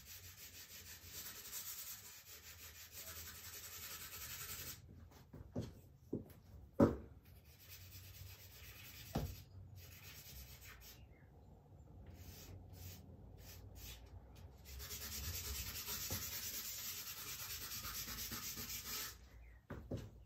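Charcoal scraping and rubbing across drawing paper on an easel, in two long scratchy stretches: one at the start and one from about 15 to 19 seconds. A few short knocks fall in the quieter middle.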